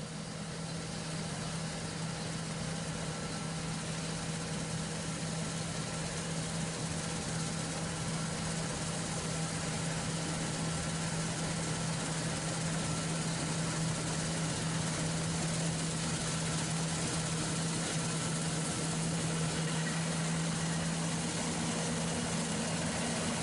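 Farm machinery engine idling steadily: an unchanging low hum with hiss above it.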